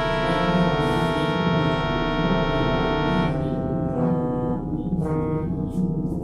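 Music: sustained, held chords that thin out a little past halfway through.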